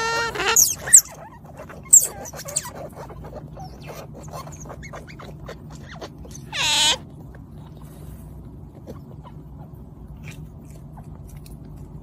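Otters giving high squeaks: a call ending in the first half-second, short chirps about one and two seconds in, and one loud squeal that rises and falls about six and a half seconds in, with soft rustling and clicks between.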